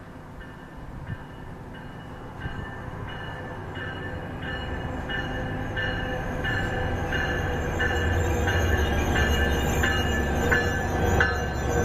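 NJT ALP-45DP dual-mode locomotive, running on diesel, pulls into the station and passes close by. Its bell rings in steady strokes, a little under two a second, growing louder as it nears. Under the bell, the rumble of the locomotive and its wheels swells to its loudest as the cars roll past.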